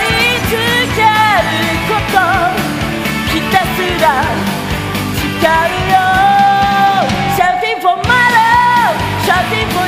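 Music: a rock-style song with a woman's high voice singing long, wavering notes over a full band. The sound drops out for a moment near the end, then carries on.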